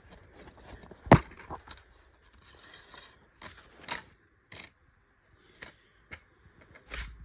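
Handling of a plastic DVD case and its cardboard slipcover as the case is opened: a sharp click about a second in, then scattered light clicks, taps and scrapes.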